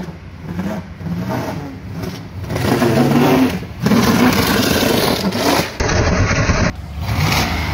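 V8 of a GMC 1500 pickup accelerating past, with a strip of cut dirt-bike inner tube fastened over the tailpipe: the rubber flaps in the exhaust flow and turns the exhaust note into a loud, nasty noise. It grows louder over the first few seconds as the truck comes closer and speeds up.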